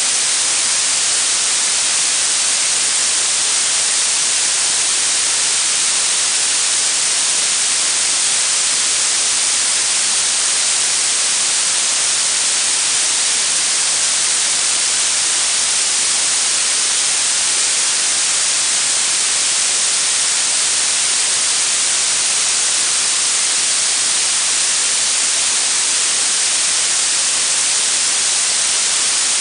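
Blue noise: a steady, unbroken synthetic hiss, strongest in the high treble and thin in the bass.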